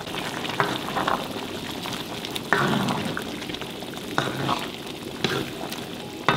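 A wooden spoon stirs vegetables through simmering broth in a stainless steel wok. A steady sizzling hiss runs under a handful of scrapes and knocks as the spoon hits the pan, the loudest about two and a half seconds in and at the very end.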